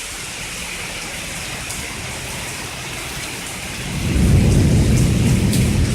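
Heavy thunderstorm downpour, rain hissing steadily, with a low rumble of thunder building about four seconds in and carrying on.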